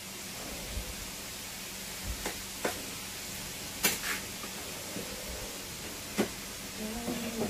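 A few short, sharp clicks and knocks of kitchenware being handled, over a steady hiss.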